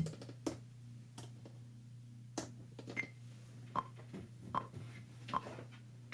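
Soft clicks and taps on a Maschine Plus's pads and buttons, about seven spread unevenly, over a steady low electrical hum.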